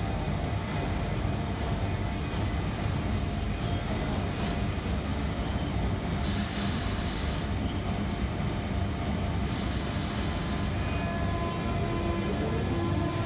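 London Underground 1992 stock Central line train standing at the platform, its equipment giving a steady rumble and hum, with a high hiss of air for about three seconds midway. Near the end the train starts to pull away, and a motor whine begins to rise in pitch.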